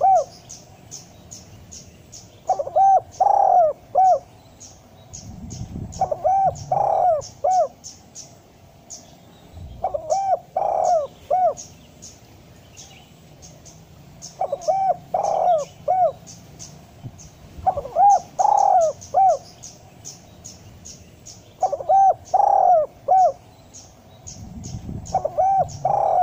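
Spotted dove (tekukur) cooing: a short phrase of several coos, each rising and falling in pitch, repeated about every four seconds. Faint rapid high ticking runs behind it throughout.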